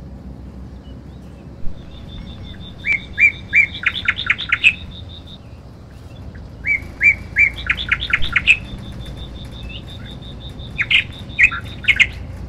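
Birds singing: a songbird gives a phrase of quick notes that speed up and climb, three times, over a fast, even run of high ticking notes from another bird or insect. A steady low rumble runs underneath.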